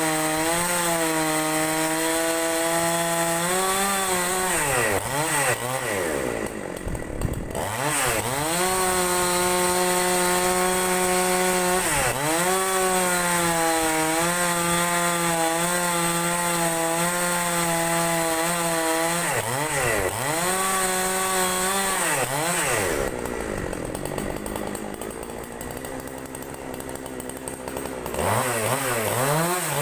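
Chainsaw running at full throttle while ripping a large log lengthwise. Its pitch drops and climbs back several times as the throttle is eased and reapplied. Past the middle it falls to a lower, quieter speed for a few seconds, then revs up again near the end.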